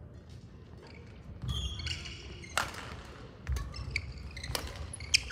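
Badminton rally: rackets hit the shuttlecock with sharp pops about three times in the second half, the last the loudest. Shoes squeak and footfalls thud on the wooden court floor between the hits.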